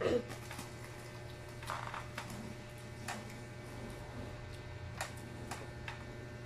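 Children eating chicken feet with their fingers: scattered small clicks and smacks of chewing and handling the food, about one a second, over a steady low hum.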